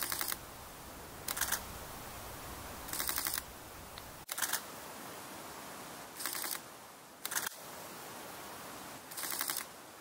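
Camera shutter firing in rapid continuous-shooting bursts: seven short bursts of quick clicks, each well under a second, spaced a second or two apart.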